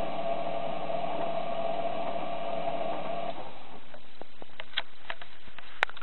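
Washing machine drum motor running with a steady whine that stops abruptly about three seconds in, followed by a few light clicks and one sharper click near the end.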